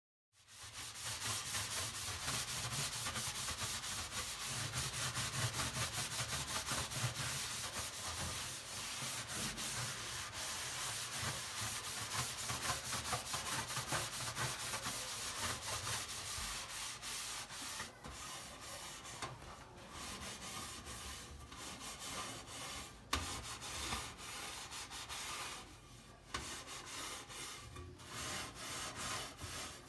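Scrubbing: rapid back-and-forth rubbing on a hard surface, steady at first, then lighter with short pauses in the last third.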